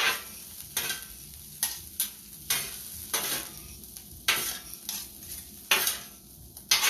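Fried rice being stirred and tossed in a hot pan, a spatula scraping against the cooking surface in short strokes about once a second, with the food sizzling between strokes.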